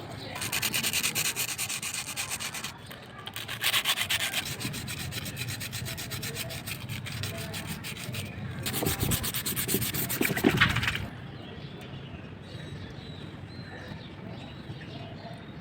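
Rapid back-and-forth abrasive rubbing on a rusty alarm-clock part, as when sanding off rust, in three spells with short breaks, stopping about eleven seconds in. After that only faint handling sounds remain.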